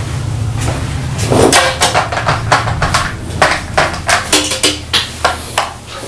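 A quick run of sharp knocks and clacks, about two or three a second, from a chair and glass-topped table being moved and sat at, over a steady low hum.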